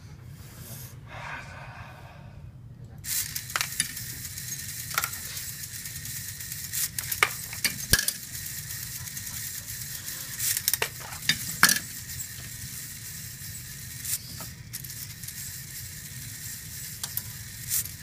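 A VEX metal-kit marble sorter running. A steady hiss comes in about three seconds in, with sharp clicks and clacks at irregular intervals as balls are fed through its metal frame and sorted by the feeding motor and servo.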